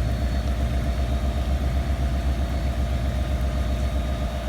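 Diesel locomotive standing at idle: an NJ Transit PL42AC's EMD 16-710G3B-T1 engine gives a steady, deep, pulsing throb, with a faint steady hum above it.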